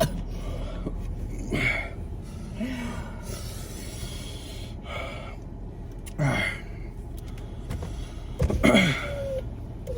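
A person's short gasps and sharp breaths, several of them spaced a second or more apart, two with a falling voiced note. They are a reaction to a hot pepper tincture sprayed into the throat, burning the throat and nose.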